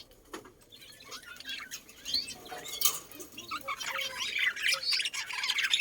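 Several small birds chirping and squawking in a busy chatter that grows denser and louder from about two seconds in.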